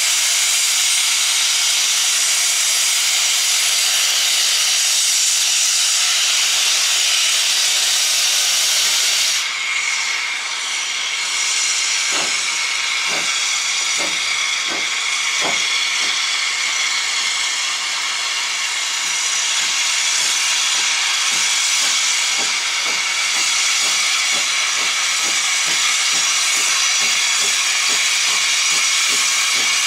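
Hunslet 0-6-0 saddle-tank steam locomotive starting its train: loud steam hissing at first, then exhaust beats begin about twelve seconds in, slow at first and quickening as it pulls away, with the hiss going on beneath them.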